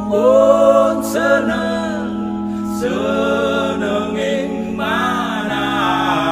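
Slow devotional song in Javanese: a voice singing long, wavering phrases over held chords that shift about every three seconds.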